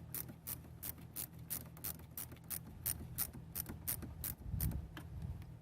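Small ratcheting wrench clicking as it backs off a 10 mm battery terminal nut, about three evenly spaced pawl clicks a second, stopping shortly before the end.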